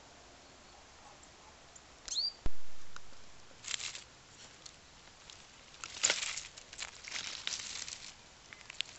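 A hand rummaging among dry twigs and loose stones on the ground, making scratchy rustling and scraping in irregular bursts that are thickest in the second half. Earlier there is one sharp click and a brief high chirp.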